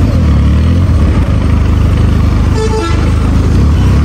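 Benelli 302S's parallel-twin engine running at low revs as the bike rolls slowly. A short horn toot sounds about two and a half seconds in.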